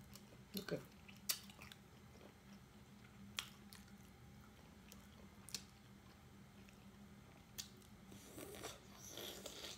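Quiet close-up eating of steamed mussels: a few sharp clicks of the shells being pried apart and handled, then a longer run of wet sucking and chewing near the end as the meat is pulled from a shell.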